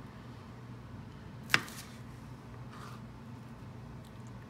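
Chef's knife dicing a red bell pepper on a plastic cutting board: one sharp knock of the blade on the board about a second and a half in, then a couple of fainter cuts.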